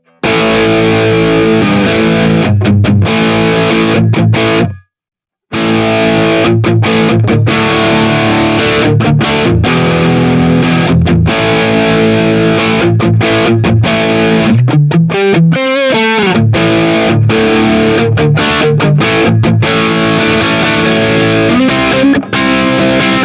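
Jet JT-300 Telecaster-style electric guitar with two single-coil pickups, played through distortion in chords and riffs. The playing stops briefly about five seconds in.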